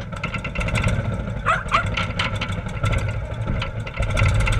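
A Ural Gobi sidecar motorcycle's air-cooled flat-twin engine idling with a steady rumble, growing louder near the end.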